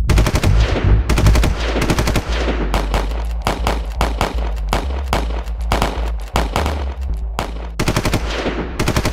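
Battle gunfire from rifles: shots in rapid volleys, one after another with only brief gaps, over a low steady rumble.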